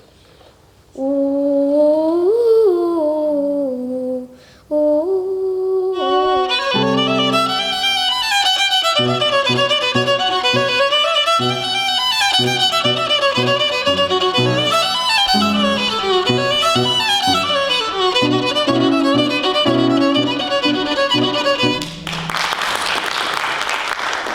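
A violin plays a slow solo phrase with sliding notes, then a faster, fuller melody over a steady accompaniment of repeated low chords from about six seconds in. Near the end the music stops and brief applause follows.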